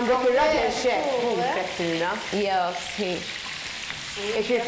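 Food frying in a pan with a steady sizzle. A pitched voice rising and falling in pitch sits over it.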